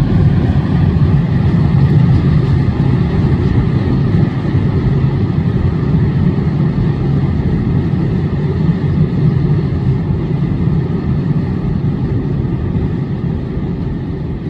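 Freight train rolling past, a steady low rumble of wagons on the rails that eases off slightly near the end.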